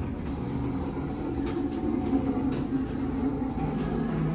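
Elevator car doors sliding open onto a subway platform level, letting in a steady low rumble and hum; the hum drops in pitch about three and a half seconds in.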